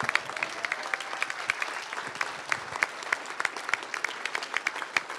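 Audience applauding: many hands clapping at once in a dense, ragged patter.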